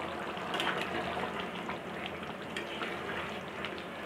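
Egg curry gravy bubbling in a pan at a simmer, with small pops and crackles, while a spatula stirs through it.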